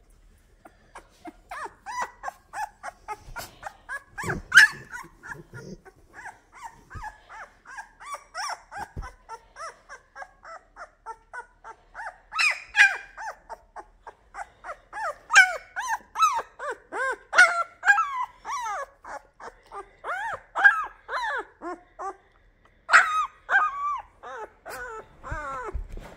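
Labrador retriever puppy squeaking and whining in a long run of short, high calls, several a second, some louder than others, with a few soft knocks in between.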